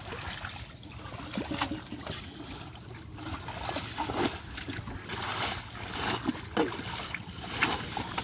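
Shallow muddy water splashing and sloshing as it is scooped and tipped out with a metal bowl, in irregular splashes with a few louder ones in the second half.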